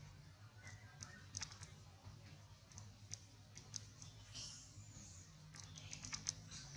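Faint, scattered short clicks over a low steady hum.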